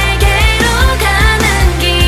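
Pop song with a singing voice over a steady beat and bass.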